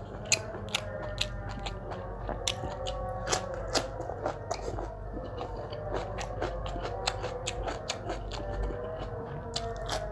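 Close-miked eating: crisp crunching bites and chewing, with sharp crunches about twice a second.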